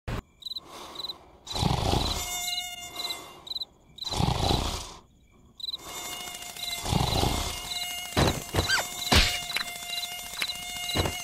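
A cartoon mosquito's thin whining buzz comes and goes over evenly repeating cricket chirps. A low swelling sound returns every two to three seconds, and a few sharp clicks fall near the end.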